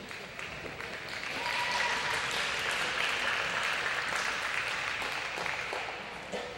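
Audience applauding, swelling about a second in and fading away near the end.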